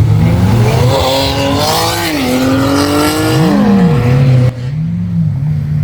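Supercar engine revving hard, its pitch climbing in the first second and holding high, then a quick rise and fall near the middle. About four and a half seconds in it cuts off abruptly to a lower engine note with a couple of small rises in pitch.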